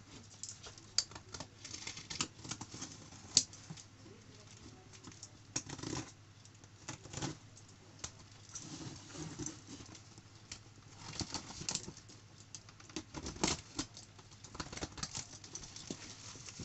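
Packing tape being slit and peeled off a large cardboard parcel: irregular scrapes, short rips and light taps on the cardboard.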